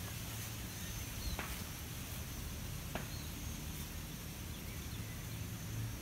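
Outdoor background ambience: a steady low hum and even hiss, with two faint short ticks about a second and a half apart.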